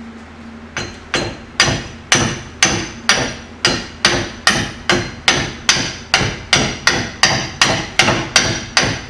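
Hammer striking the pinion yoke of a rear differential in steady blows, a little over two a second, each with a short metallic ring, driving the yoke onto the pinion far enough for the nut to thread on.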